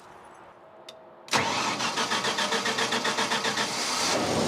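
Onan standby generator's engine starting: a faint click, then about a second in the engine cranks over, pulsing about five times a second, and near the end it catches and settles into steady running.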